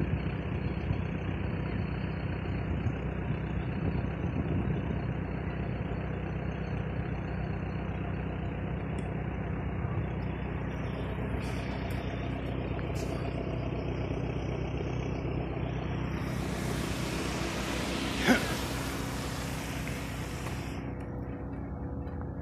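An engine running steadily with an even low hum. A rushing hiss swells for a few seconds near the end, and there is a single sharp knock just before it peaks.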